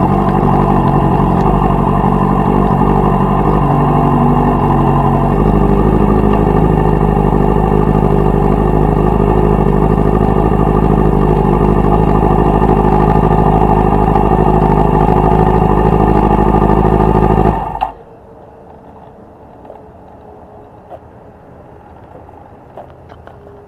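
Yamaha R6 sport bike's inline-four engine running at low, steady revs, then shut off about 18 seconds in, after which only faint ticks and clicks remain.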